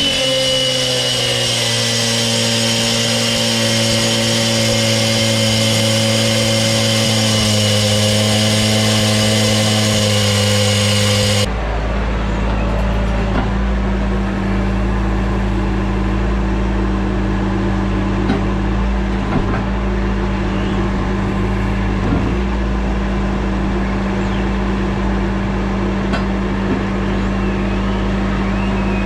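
Gas-powered cut-off saw running at full speed with a high whine, its diamond blade cutting through the old concrete sidewalk. About eleven seconds in it gives way abruptly to the diesel engine of a Bobcat T595 compact track loader running steadily at a low, even pitch.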